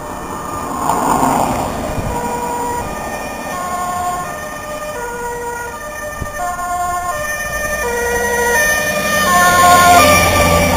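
Dutch ambulance's two-tone siren stepping back and forth between a high and a low note on an urgent (A1) call. It grows louder as the ambulance approaches and is loudest as it passes close about ten seconds in, when its engine rumble can also be heard.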